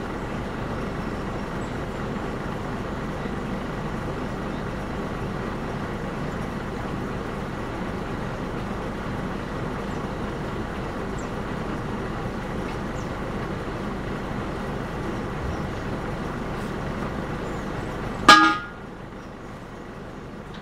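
A heavy vehicle's engine running steadily. Near the end comes one short, loud vehicle horn toot, and the engine sound drops after it.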